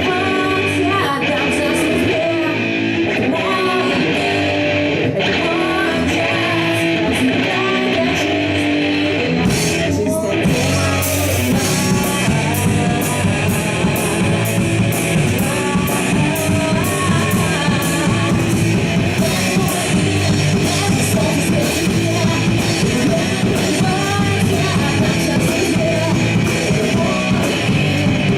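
Rock band playing live, electric guitar leading at first; about ten seconds in the drums come in with regular cymbal strokes and the full band plays on.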